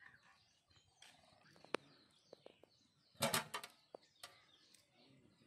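Stainless-steel water pot set down on the steel lid of a biryani pot, weighting the lid for dum cooking. It makes a short clatter of metal on metal about three seconds in, with a few lighter clicks before and after.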